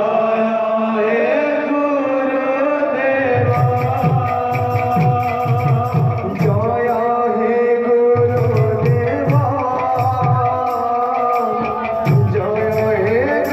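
Odia kirtan music: a sustained, gliding melody, joined about three and a half seconds in by a khol barrel drum playing low strokes that bend down in pitch and by small cymbals ticking in a steady beat.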